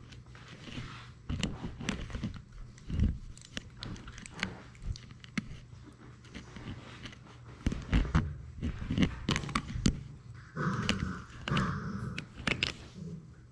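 A Labrador Retriever puppy mouthing and chewing on a GoPro camera: irregular sharp clicks, knocks and scrapes of teeth and muzzle on the camera housing, coming thicker and louder in the second half.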